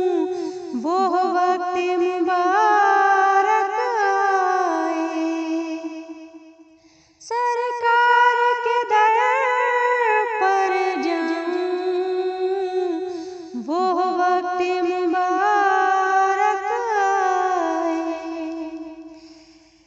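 A solo female voice sings a naat unaccompanied, in long, ornamented phrases. The phrases fade out about seven seconds in and again near the end, and a new phrase starts after each break.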